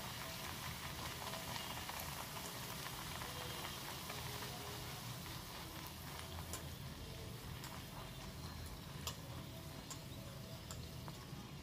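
A pumpkin puri deep-frying in hot oil in a steel kadai: the oil sizzles and bubbles steadily, with a few faint clicks.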